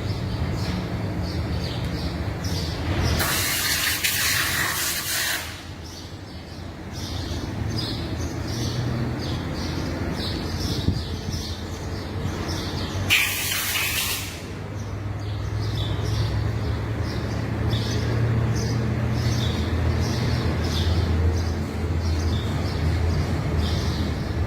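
Birds chirping over and over with short, high calls, over a low steady hum. Two loud hissing bursts cut in, one of about two seconds a few seconds in and a shorter one about halfway through.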